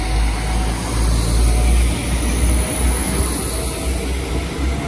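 Coupled class 172 diesel multiple units pulling away from a station, their underfloor diesel engines working under power with a steady deep sound.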